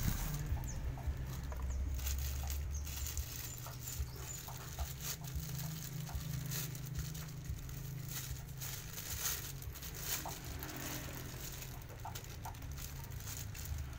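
Clear plastic packaging bags rustling and crinkling as they are handled and opened, with frequent small crackles and clicks.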